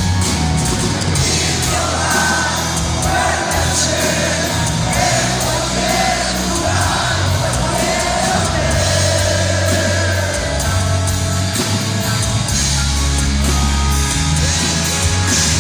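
Live hard rock band playing, with bass, drums and cymbals under a sung melody held in long notes.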